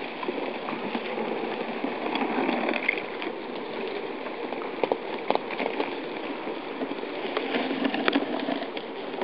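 River ice crackling and grinding as the frozen surface breaks up and starts to drift: a steady crackle with a few sharper cracks in the second half.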